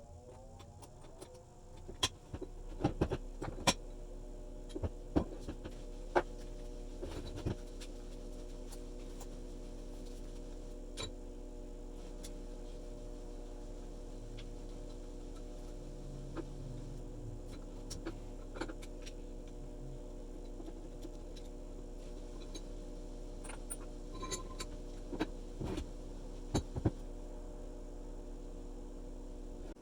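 An electric motor spinning up and then running steadily, with sharp metal clicks and knocks scattered throughout.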